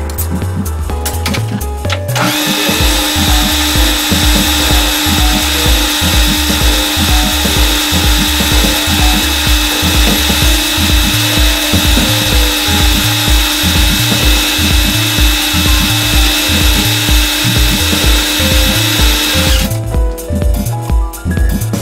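A high-speed electric spindle with a small drill in an ER collet runs and drills into a small metal part, a steady high whine with a hiss of cutting; it starts about two seconds in and stops shortly before the end. Background music with a steady beat plays underneath.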